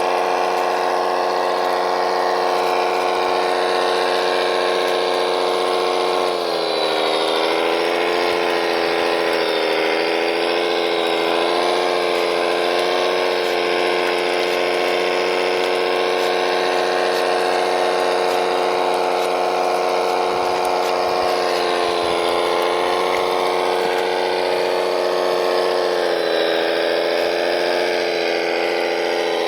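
A radio-controlled model machine's motor drone, steady and pitched. Its pitch sags and wavers about six seconds in, then dips again near the end, as if the motor is briefly loaded.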